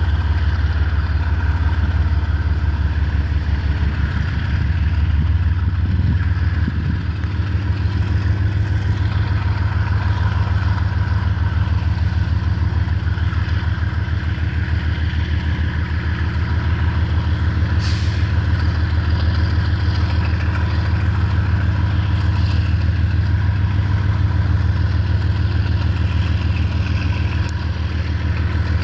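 Two TE33AC diesel-electric locomotives' GEVO-12 diesel engines running under load with a loud, steady low drone as they haul a freight train slowly closer. There is a brief high hiss about eighteen seconds in.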